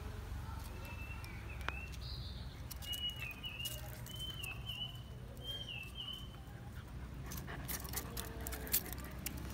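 Soft scuffling, clicks and taps of puppies' and a kitten's paws on brick paving and dry leaves, thickest and loudest in the last few seconds. A few faint, short, high chirps come in the first half.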